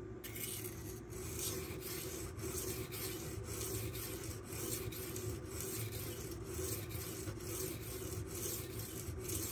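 Magnacut steel knife blade being ground in repeated back-and-forth strokes on a silicon carbide whetstone, a steady gritty rasping. The stone is drying out, so the strokes sound coarser without lubrication.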